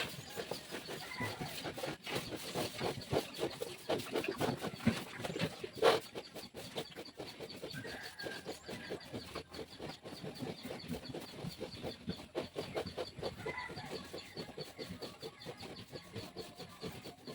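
Farm animals making a rapid run of short calls, busiest in the first six seconds, with one sharper, louder call about six seconds in and a few brief higher calls later.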